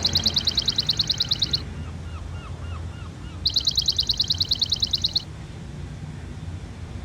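Recorded bird-call sound effect from GarageBand's Animal Kingdom Live Loops: a rapid high trill of about nine notes a second, played twice, with faint falling chirps between, over a steady low rumble.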